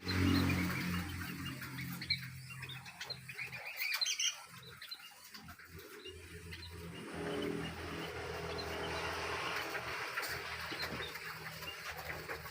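Small birds chirping in an aviary, with short high chirps over a low steady hum.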